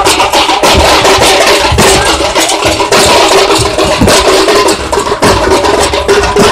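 Several large stick-beaten barrel drums played together in a fast, dense, continuous beat, very loud throughout, with a steady droning tone beneath the strikes.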